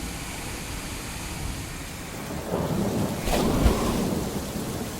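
Thunderstorm sound effect: a steady hiss of rain, then about two and a half seconds in a thunderclap that cracks and rumbles before easing off.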